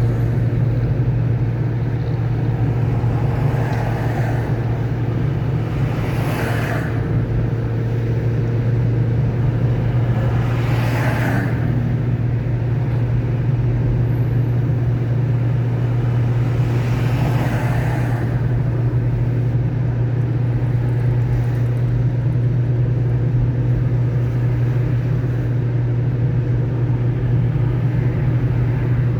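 A car driving on a wet road in the rain: a steady low drone of engine and tyres, with four brief swishes standing out in the first two-thirds.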